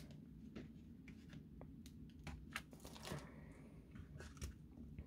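Faint scattered clicks and light rustling of dry twig sticks and artificial flowers being handled and pushed into a floral arrangement.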